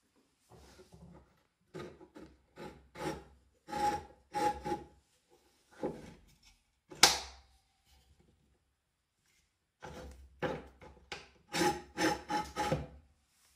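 The metal vice of a Scheppach MSB1100 metal band saw being worked by hand: a run of short metal-on-metal scrapes and clicks as the jaw is slid along its bar, a single sharp metallic clack about halfway through, then another run of scrapes and clicks as the clamping lever is turned.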